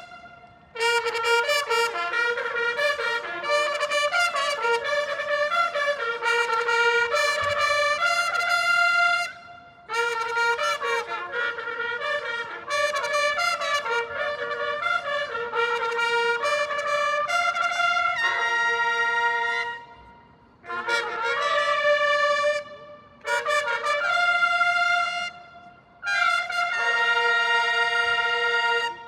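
A massed bugle section plays a bugle flourish: fast phrases of bright brass notes broken by short pauses, the last phrase ending on a held chord.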